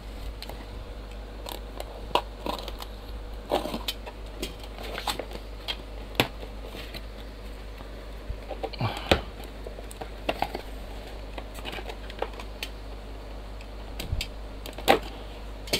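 Hands opening a taped yellow padded mailer and pulling out a cardboard box: irregular crinkling of plastic and tape with scattered clicks and rustles. The sharpest tap comes near the end.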